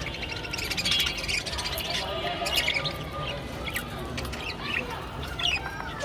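Budgerigars chattering with a run of short chirps and warbling, busiest about a second in and again a little past the middle.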